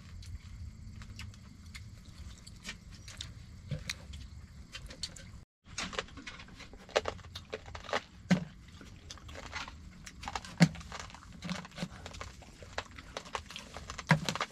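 Dog eating from a plastic bowl: irregular chewing clicks and crunches over a low hum. After a short break about five seconds in, irregular clicks and a few low knocks continue, louder.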